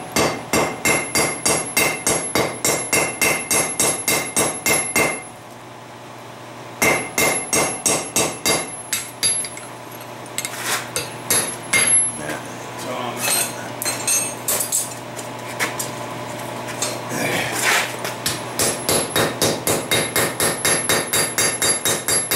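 Hand hammer striking a red-hot ball peen hammer head on an anvil to flatten it. Runs of quick blows come at about three a second, each with a short metallic ring, broken by a brief pause about five seconds in and by slower, scattered blows through the middle.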